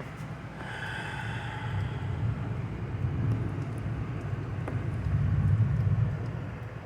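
Thunder rumbling through an open door, a low rumble that builds over several seconds and then dies away near the end.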